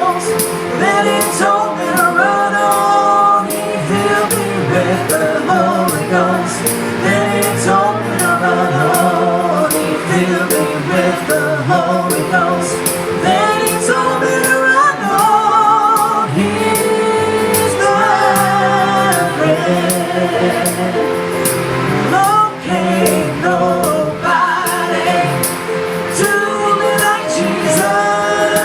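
Worship song: a band playing with singers, female voices leading, over a steady drum beat.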